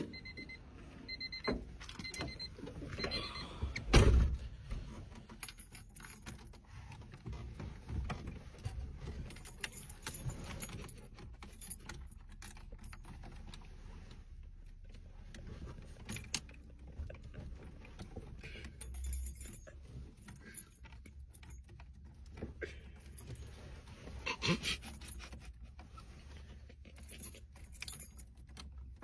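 A car's high warning chime beeps several times, then the car door shuts with a thump about four seconds in. After that, a bunch of car keys jangles and clicks against the ignition as the key is handled and turned.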